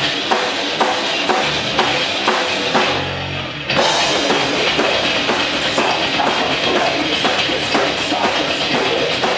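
Rock band playing, with the drum kit keeping a steady beat. About three seconds in the band drops out briefly to a single low held note, then comes back in fuller and louder.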